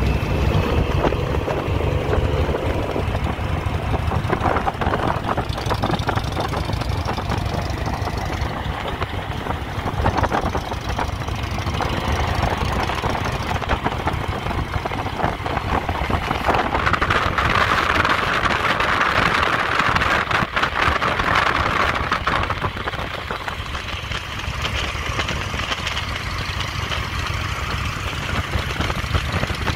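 Harley-Davidson Road Glide's V-twin engine running as the motorcycle is ridden at low speed, its note rising and falling with the throttle. It is loudest about two-thirds of the way through.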